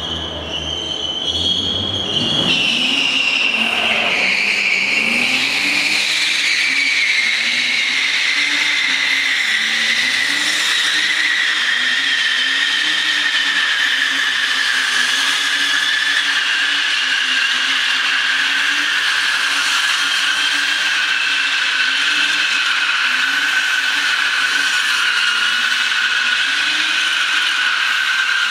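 BMW E36 3 Series drifting in continuous circles: a long, unbroken tyre squeal that slowly drops in pitch, over the engine held at high revs, rising and falling with the throttle. The squeal sets in about two seconds in, as the car pulls away into the drift.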